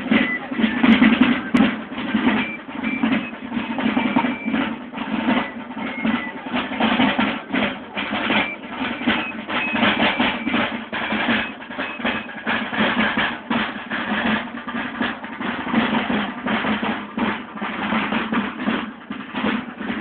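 A group of marching military side drums, brass-shelled rope-tension drums, beating a steady march rhythm.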